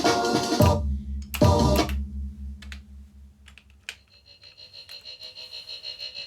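Jungle breakbeat track from hardware samplers and a synth module playing, then stopping abruptly under a second in. A short burst of the beat comes back, then a few sharp key clicks. A sustained synth tone fades in near the end.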